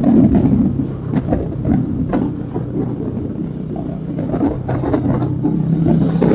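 Motorcycle engine running while riding, its note easing off about a second in and building back up near the end.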